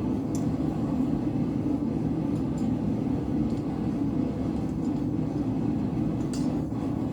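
Blacksmith's forge running with a steady low roar, with a few faint light clicks of metal over it.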